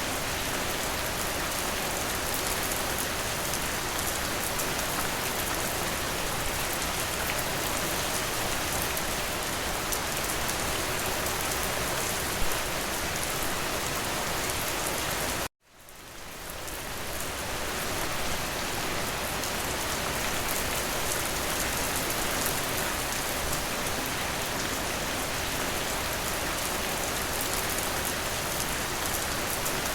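Steady rain falling. About halfway through it cuts out abruptly for an instant and fades back in over a second or two.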